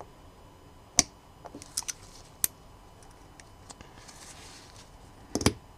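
Needle-nose pliers and the small steel parts of a SIG P320 fire control unit clicking as the trigger bar spring is unhooked. There are a few sharp clicks, the loudest about a second in, and a quick cluster near the end.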